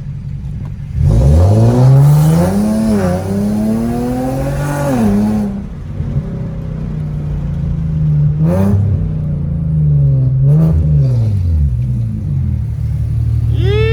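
Infiniti G37S's V6 engine with aftermarket exhaust accelerating hard: the pitch climbs about a second in, drops at a gear change near three seconds, climbs again to a second shift around five and a half seconds, then runs at lower revs with a couple of brief rises.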